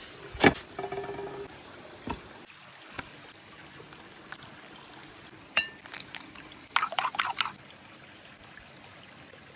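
Kitchen utensils and dishware knocking and clinking during food preparation: a few separate sharp knocks, one followed by a brief ringing, then a quick run of clinks about seven seconds in.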